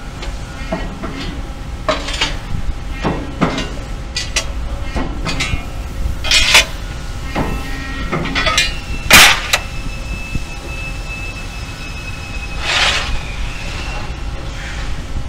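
Press brake bending sheet-metal parts: a run of sharp metallic clanks and knocks as the parts are handled and pressed, with two loud clanks about six and nine seconds in, over a steady low factory hum. A thin high whine holds for a few seconds after the loudest clank, and a short rushing burst comes near the end.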